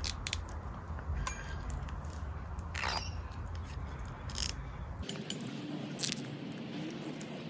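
Scattered small clicks and plastic rustles of grafting tape being pulled from its roll and wrapped around an avocado graft union, over a low hum that drops away about five seconds in.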